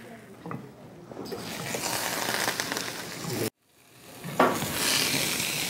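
Butter sizzling and frying in a hot pan, a steady high hiss that builds up, cuts out abruptly for about a second partway through, then comes back suddenly.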